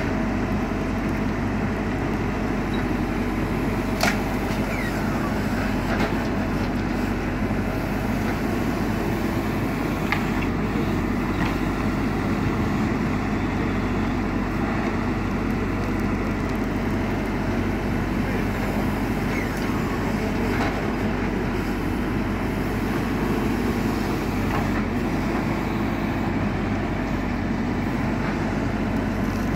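JCB 4CX backhoe loader's diesel engine running steadily while working, with a few sharp knocks about 4, 6 and 10 seconds in.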